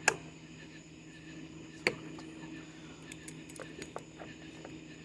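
A few sharp clicks and light taps of hand tools on metal as a stuck pin is worked out of a drive wheel. The loudest click comes about two seconds in, with smaller ticks later, over a faint steady hum.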